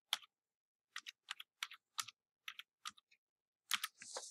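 Computer keyboard keys being typed one at a time: about ten separate keystrokes at an uneven pace. A soft hiss begins near the end.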